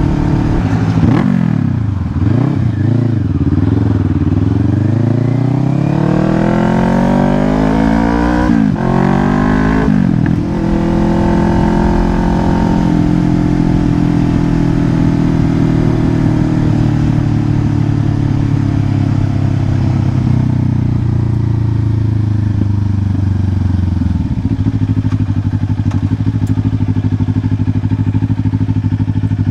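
Kawasaki Ninja 500 parallel-twin engine accelerating through the gears, its pitch climbing with quick upshifts about 8½ and 10 seconds in, then running at a steady cruise with the revs slowly easing off. Wind rush on the helmet microphone underneath.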